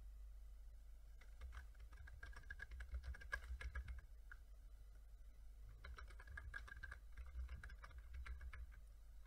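Faint typing on a computer keyboard: two runs of quick keystrokes of about three seconds each, with a pause of a second or two between them. A PIN is being typed and then typed again to confirm it.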